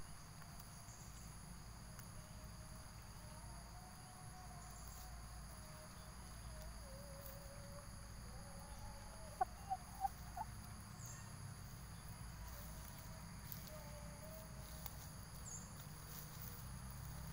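Steady high-pitched insect chorus, with four short clucks from a young Siamese game chicken foraging in grass about nine to ten seconds in.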